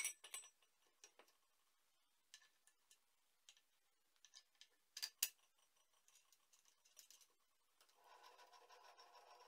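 Faint clicks and knocks from a homemade pipe vise being handled: its hinged upper frame is swung open and closed around an aluminium tube, with the loudest knocks at the start and about five seconds in. A faint steady hum comes in near the end.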